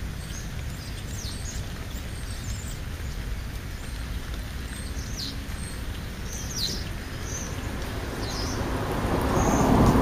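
Steady low outdoor rumble with scattered short, high chirps of small birds, and a vehicle passing that swells and is loudest near the end.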